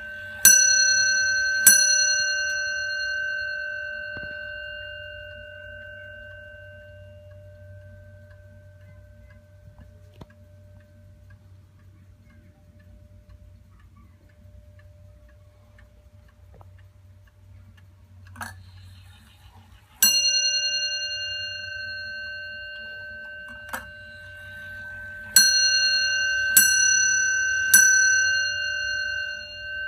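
Bell of a Warmink Zaanse weight-driven wall clock struck by its hammer, each stroke ringing out slowly. There are two strokes about a second apart near the start, a single stroke about 20 seconds in, and three more about a second apart near the end.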